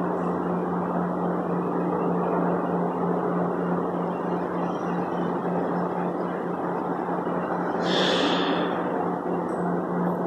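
Steady hum and hiss of air conditioning or ventilation, with a low humming tone under it. A brief hiss comes about eight seconds in.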